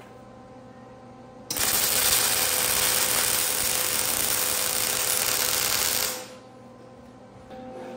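Electric arc welding on a steel plate: a loud, even crackling hiss of the arc starts about a second and a half in and stops about four and a half seconds later.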